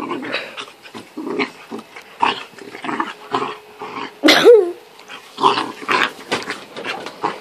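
Two dogs, a bulldog and a black puppy, play-fighting: rapid growls, grunts and snarls in quick bursts, with one louder, sliding yelp about four seconds in.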